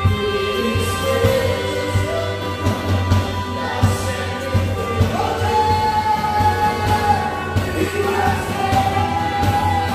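Live rock-style worship band: a male lead singer on a microphone over a Tama drum kit, bass guitar and electric guitar, the singer holding two long notes in the second half.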